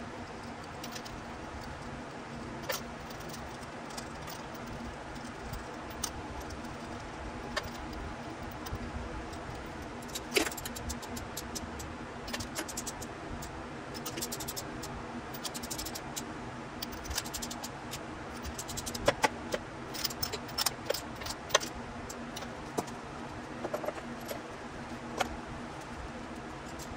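Metal hand tools clinking and clicking as spark plugs are fitted into an engine's cylinder head with a socket and extension. The sharp clinks are scattered and come most often in the second half, over a steady low hum.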